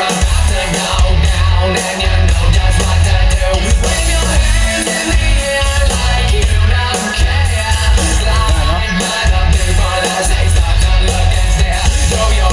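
A rock song with a singer, played loud through a stereo system's loudspeakers, with strong bass pulsing in a steady beat.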